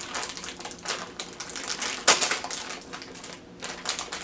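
Plastic packaging crinkling and crackling as it is handled and opened by hand, with many short crackles and one loud crackle about two seconds in.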